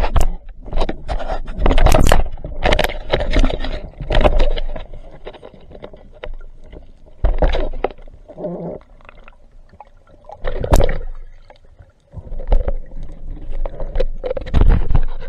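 Water noise picked up by an underwater camera as a spearfisher swims and dives: irregular rushes, bubbling and knocks against the camera housing. It is quieter in the middle, with one sharp knock, and busy again toward the end.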